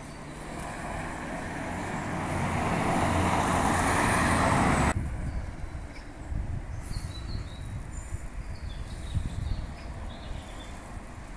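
Road traffic: a passing vehicle's tyre and engine noise swells over about five seconds and then stops abruptly. After that, a low, quieter traffic rumble remains, with a few faint high bird chirps.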